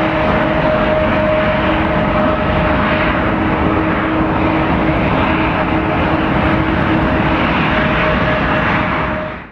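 Boeing 777-200 airliner's twin jet engines running, a steady loud roar with two steady whining tones. The sound fades out quickly near the end.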